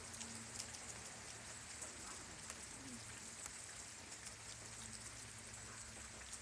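Steady rain falling, an even hiss with many small drop ticks close to the microphone.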